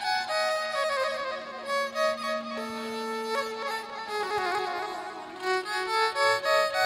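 Instrumental music: a slow melody of held notes over a long low sustained tone.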